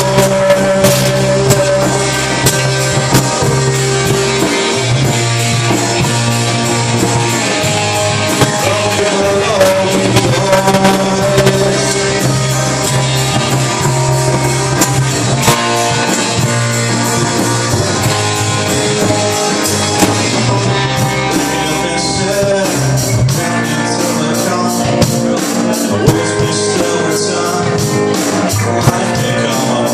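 Live rock band playing: electric guitars, bass guitar and drums, with a sung vocal over them. From about two-thirds of the way through, the drummer keeps a steady, even beat on the cymbals.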